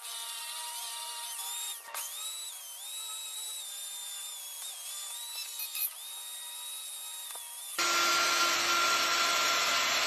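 Electric die grinder with a sanding drum running at high speed, its whine dipping and recovering in pitch as the drum is pressed into the wood and eased off. About eight seconds in the sound switches abruptly to a louder, steady rushing noise of a router running.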